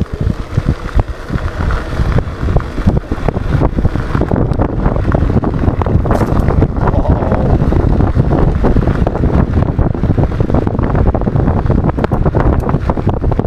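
Wind buffeting the action-camera microphone as an E100 Eagle electric scooter rides a rough dirt track, with a constant run of rattles and knocks from the bumps.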